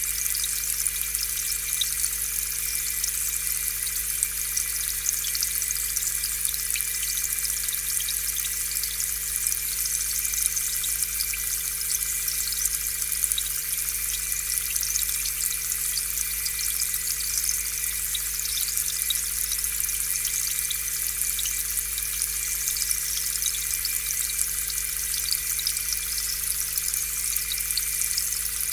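Aquarium air pump running, with a continuous stream of air bubbles fizzing and popping in the tank water over a faint steady hum.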